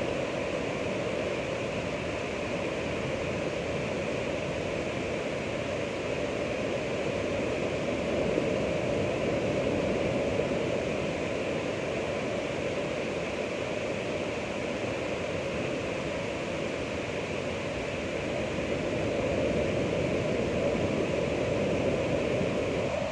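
Ocean surf: a continuous rushing wash of waves that swells gently twice, with no separate crashes standing out.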